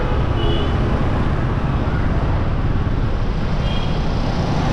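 Motorcycle ride in city traffic: engines and road noise from the ridden bike and the motorbikes close around it, a steady low rumble without a break.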